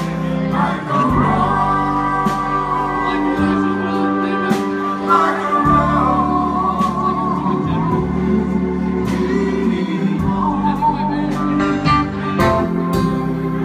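Live band music led by a two-manual organ holding and moving through chords, over bass and drums with regular cymbal strokes; a wavering melody line rides on top.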